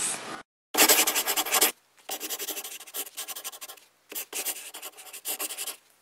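Handwriting on paper: scratchy pen strokes in three runs, the first and loudest about a second in.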